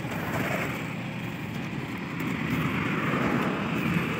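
Road traffic going by: a steady rumble of vehicle engines and tyres that grows a little louder in the second half.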